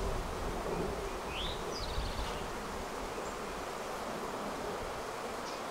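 A honeybee colony buzzing steadily from an open hive with its frames exposed.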